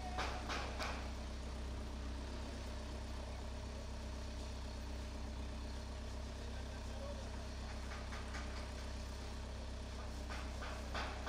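A steady low mechanical hum throughout. Clusters of short, sharp sounds come right at the start, faintly about eight seconds in, and again near the end.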